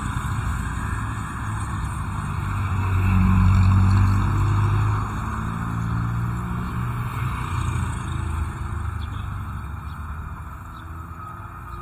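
Motor vehicle engine running over road noise, swelling to its loudest about three to five seconds in, then slowly fading.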